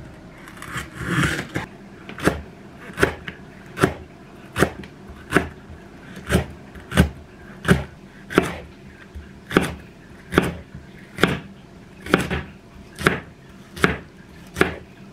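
Chef's knife slicing a large Korean green onion (daepa) on a wooden cutting board: slow, even cuts about one every three-quarters of a second, each ending in a sharp knock of the blade on the board. A brief rustle comes about a second in.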